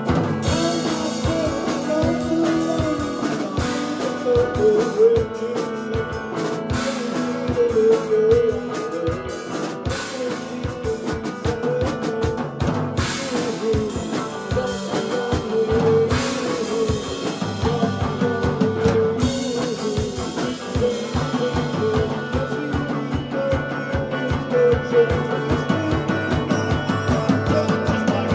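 Electric guitar and a Pearl drum kit playing a rock song live, the guitar carrying a wavering melodic line over a steady drum beat.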